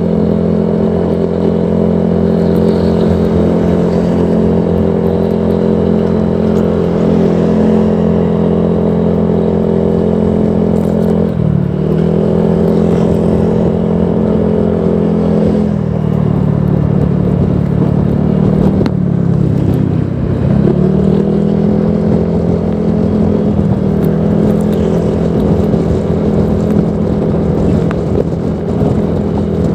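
Honda PCX 160 scooter's single-cylinder engine running through a Proliner Neo Silent aftermarket exhaust at a steady speed. Its pitch drops briefly about 11 seconds in, again around 16 seconds and more deeply around 19 to 21 seconds, then climbs back each time.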